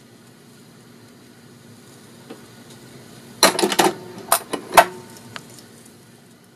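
RCA Victor 9-JY 45 rpm record player running with a faint steady hum and hiss after the record's music has ended. About three and a half seconds in comes a quick cluster of loud mechanical clicks and clunks lasting about a second and a half, typical of the automatic changer cycling at the end of the record.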